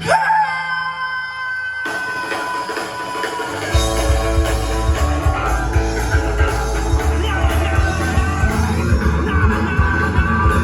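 Live rock band played through a large RCF line-array PA with subwoofers: a guitar strikes and holds ringing notes, then about four seconds in the full band kicks in with heavy bass and steady drum hits.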